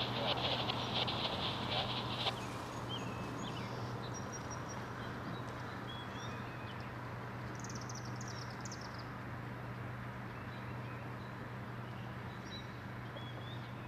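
Outdoor ambience of songbirds chirping in short high calls, with a quick falling run of notes about eight seconds in, over a steady low hum. For the first two seconds a rapid pulsing buzz and a louder wash of noise sit over it, then drop away.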